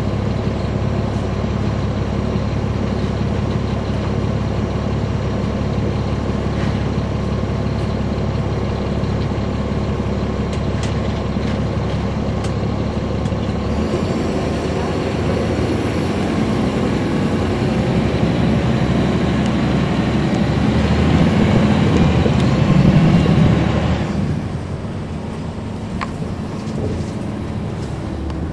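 Heard from on board, a 2009 NABI 40-SFW transit bus's Caterpillar C13 ACERT diesel engine runs steadily at first. About halfway through it pulls harder and grows louder, with a faint rising whine, then drops off sharply a few seconds before the end.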